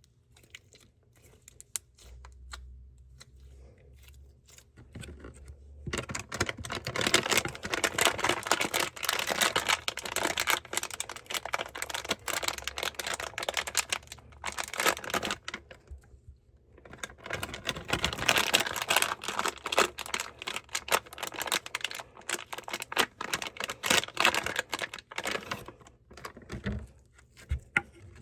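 Glossy slime being squeezed, poked and stretched by hand, making dense rapid clicks and crackles. The clicking comes in two long runs, the first starting about six seconds in and the second after a short pause in the middle.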